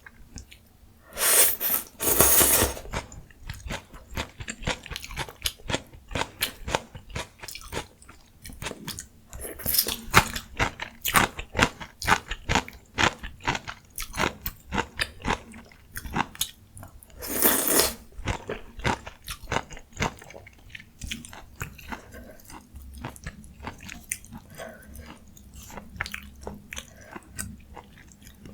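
Close-miked eating: steady chewing and crunching of ramyun and mustard-leaf kimchi, with three louder noisy stretches of about a second each, near the start, about ten seconds in and about eighteen seconds in.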